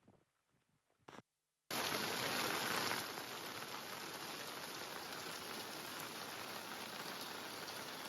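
Heavy rain falling, a dense steady hiss that cuts in abruptly after a second and a half of near silence and is a little louder for its first second.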